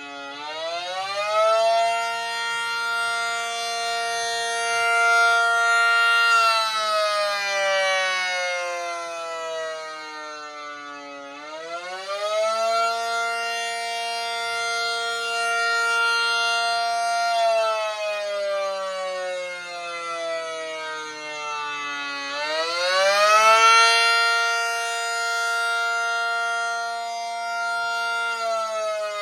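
Miniature ACA P-50 siren wailing in long cycles, the rising-and-falling attack signal. It winds up to pitch in about a second, holds steady for about five seconds, then slowly winds down before climbing again, three rises in all.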